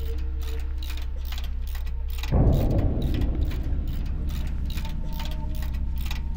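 Background music with a steady, quick ticking beat of about four a second over held notes, getting fuller about two seconds in.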